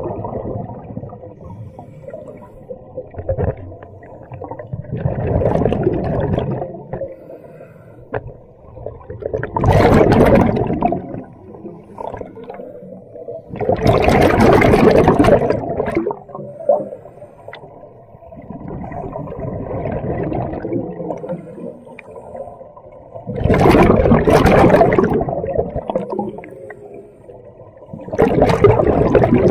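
A scuba diver breathing through a regulator underwater: bursts of exhaled bubbles gurgle out about every four to five seconds, with a muffled low rumble between breaths.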